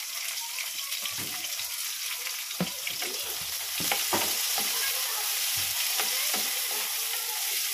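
Chopped white onion sizzling in hot oil in a frying pan, with a steady hiss. A wooden spatula stirs it, scraping and tapping against the pan every second or so.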